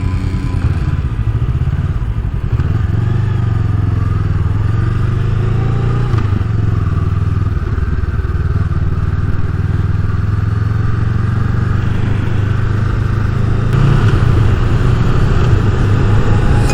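Honda CMX500 Rebel's parallel-twin engine running steadily under way. It gets a little louder about three-quarters of the way through.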